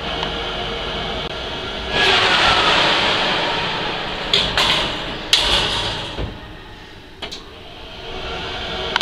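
Turbofan convection oven's fan running steadily; about two seconds in the oven door opens and the fan noise gets louder. A few sharp metal clanks and scrapes follow as a metal muffin tin is slid out over the oven's wire rack.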